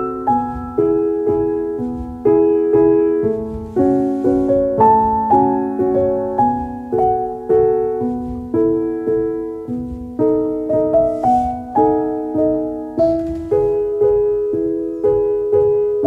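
Background piano music: soft chords and melody notes struck about twice a second, each dying away.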